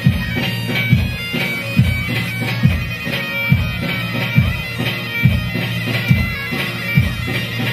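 Amplified Kurdish wedding dance music with no singing: a reedy, bagpipe-like lead melody over a steady drone, driven by a heavy drum beat about once every 0.9 seconds.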